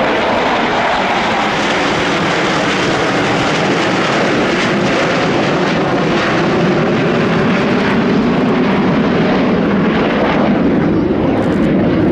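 Loud, steady jet engine noise from a formation of six J-10 fighter jets flying past, swelling slightly in the second half.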